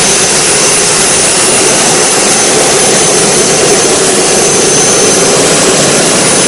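The MTT Y2K motorcycle's Rolls-Royce Allison 250 gas-turbine engine running: a loud, even rush with a thin, steady high whine over it.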